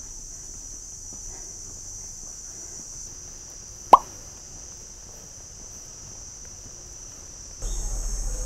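Steady high-pitched chirring of insects in tropical trees. About four seconds in comes a single short plop that falls in pitch, the loudest sound, an edited-in effect as an on-screen caption pops up. Near the end the background abruptly becomes louder, with a low rumble.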